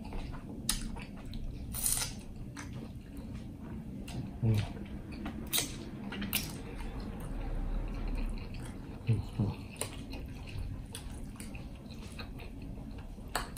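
Close-up wet chewing and lip-smacking of a man eating shrimp and creamy spaghetti, with many sharp wet mouth clicks scattered through. A few brief low hums come about four and nine seconds in.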